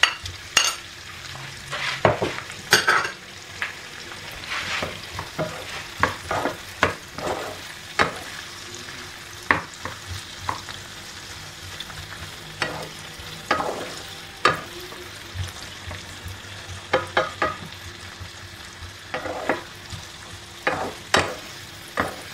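Sliced onion, carrots, mushrooms and bamboo shoots sizzling in hot oil in a pan while a wooden spoon stirs them, with repeated irregular scrapes and knocks of the spoon against the pan over the steady sizzle.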